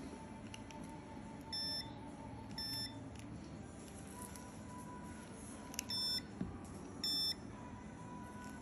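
Four short electronic beeps in two pairs, each pair about a second apart, from a handheld red-light laser device used on the toe.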